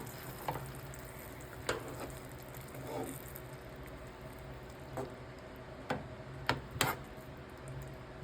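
A pan of pepper steak in gravy still bubbling and sizzling faintly on a stove just turned off, with a handful of short sharp clinks, most of them in the second half, over a steady low hum.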